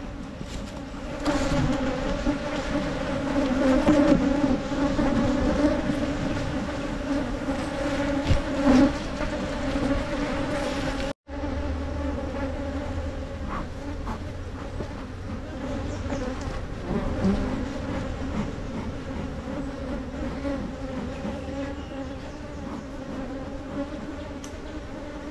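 Wild honey bees buzzing steadily around their nest hole in the ground: a continuous low drone with a higher hum above it. The hum cuts out for an instant about eleven seconds in, then carries on a little quieter.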